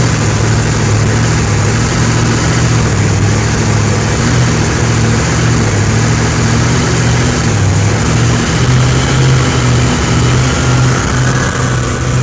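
Supercharged V-drive boat engine running hard at speed, its low drone stepping up slightly in pitch about two-thirds of the way in, over the steady rush of wind and wake spray.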